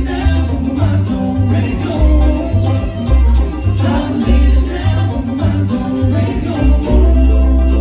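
Bluegrass band playing an instrumental passage, string instruments over an upright bass pulsing steadily on the beat, with a long held note near the end.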